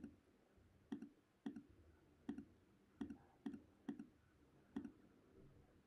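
About eight faint, irregularly spaced computer mouse clicks over near silence.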